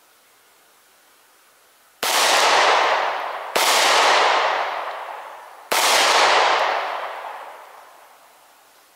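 Three slow, aimed shots from a 9mm pistol, about a second and a half and then two seconds apart, each followed by a long echoing tail.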